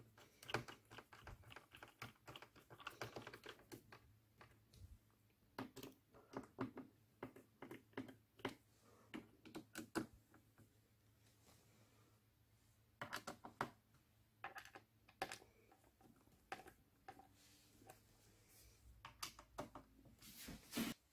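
Faint, irregular clicks and taps of a laptop being handled, coming in small clusters with short pauses between them.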